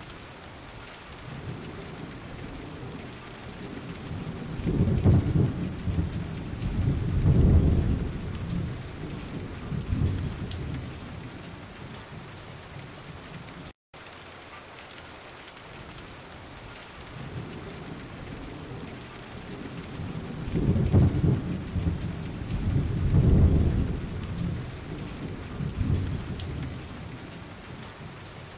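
Steady rain falling on pooled water and wet ground, with deep, low rumbles that swell up and die away twice.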